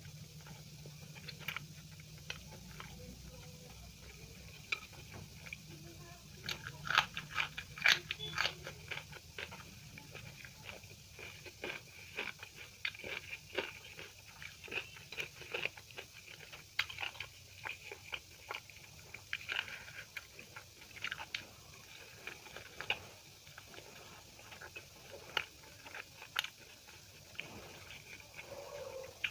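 Close-miked eating: a person chewing and biting food, wet mouth clicks and smacks repeating irregularly, with a busier, louder run of them about seven to nine seconds in.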